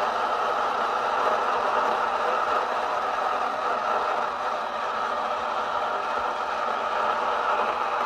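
Mainstays single-serve pod coffee maker running with a steady, even rushing noise as it heats its water for brewing.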